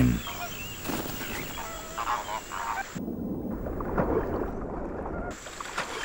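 American flamingos honking: a few short goose-like calls in the first half, over a steady low background noise.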